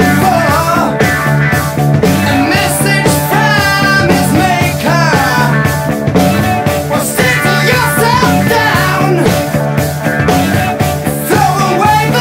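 1970s rock band recording playing at a full, steady level, with a lead melody line sliding and wavering in pitch over a steady bass and beat.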